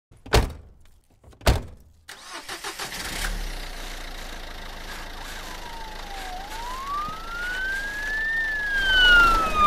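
Two sharp bangs, then a Volkswagen car's engine starts and runs, its pitch rising and then falling back in the last few seconds as it revs.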